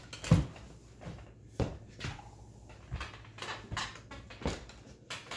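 A handful of separate knocks and bumps, the loudest about a third of a second in, from a person moving about and settling in at the table.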